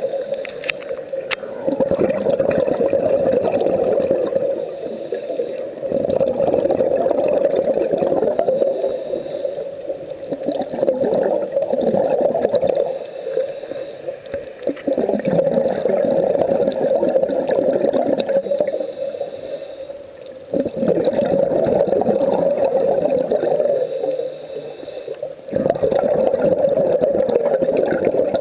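Scuba breathing through a regulator underwater: long rumbling stretches of exhaled bubbles, each broken by a short, high inhalation hiss about every four to five seconds, five breaths in all.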